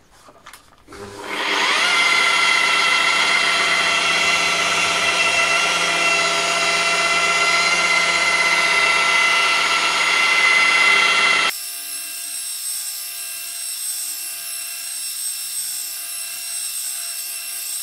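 Electric polisher with a foam pad buffing an epoxy-resin surface: the motor spins up about a second in and runs as a steady whine. About two-thirds of the way through the sound drops suddenly to a quieter, thinner whine.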